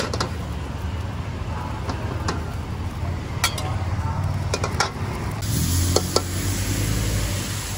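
Metal spatula clanking and scraping against a wok during stir-frying, over a steady low rumble. About five and a half seconds in, a loud sizzle sets in and keeps going.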